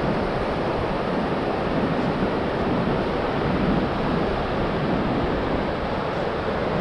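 Pacific Ocean surf breaking and washing up a wide, flat sandy beach, a steady rushing with wind buffeting the microphone.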